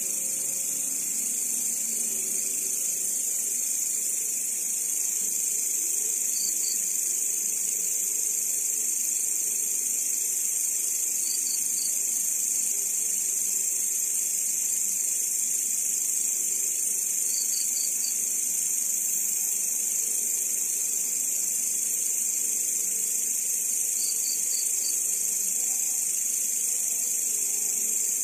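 Grasshoppers singing: a continuous high-pitched buzzing trill, with a short burst of rapid chirps about every five or six seconds from another insect.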